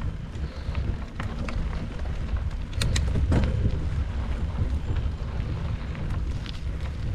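Wind buffeting the microphone and a low rumble while riding a mountain bike down a dirt trail, with scattered sharp clicks and rattles, a cluster of them about three seconds in.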